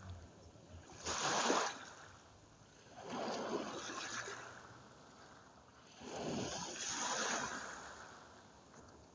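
Small sea waves breaking and washing up the shore: three surges a couple of seconds apart, each swelling and then fading, the first the sharpest and loudest.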